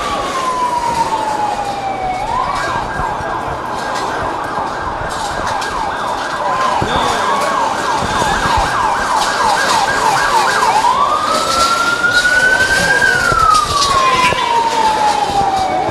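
Emergency vehicle siren: a slow falling wail, switching a couple of seconds in to a fast warbling yelp for about eight seconds, then back to slow rising and falling wails.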